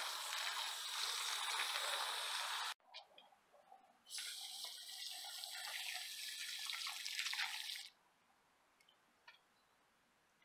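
Water spraying from a garden hose spray nozzle onto potting soil in a grow bag, as a steady hiss in two spells: about three seconds, stopping abruptly, then again about a second later for nearly four seconds before cutting off.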